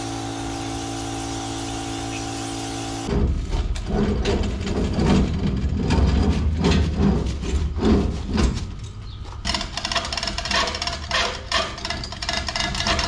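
A steady motor hum for about three seconds, then irregular knocking and clattering as a chain hoist and the hanging engine block are pushed and handled.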